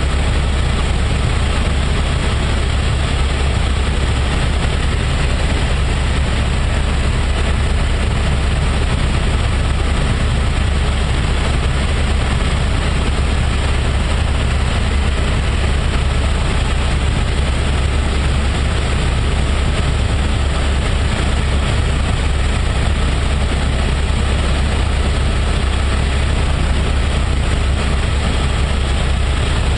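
Helicopter in level flight heard from inside the cabin: the rotor and engine make a steady, deep drone that does not change.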